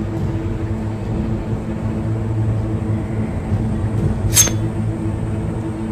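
Steady low drone of a few held tones, with one sharp metallic clink about four seconds in.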